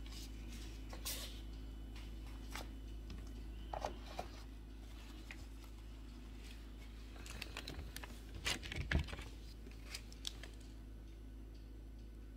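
Scattered small clicks and taps of tiny painted figures being handled, set down and picked up on a tabletop, with a louder cluster of knocks about two thirds of the way through, over a steady low background hum.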